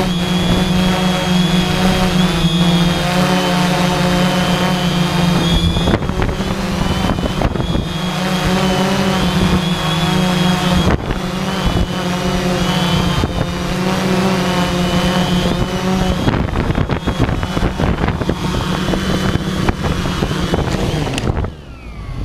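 3D Robotics IRIS quadcopter's four electric motors and propellers running, a steady hum with a high whine, buffeted by gusty wind. Near the end the sound drops away with falling whines, as the motors spin down.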